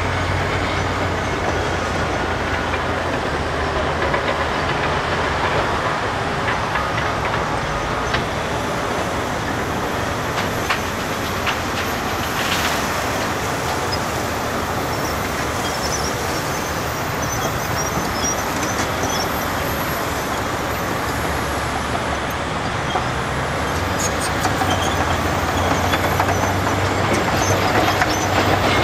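Cat 5130B mass excavator working through a loading cycle: its diesel engine and hydraulics run hard under load, with the haul truck's engine underneath. About halfway through, a bucketload of dirt and rock pours into the Cat 777 haul truck's steel bed.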